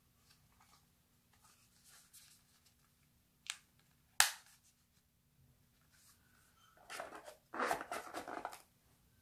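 Packaging being handled during an unboxing: two sharp clicks about three and a half and four seconds in, then a couple of seconds of rustling.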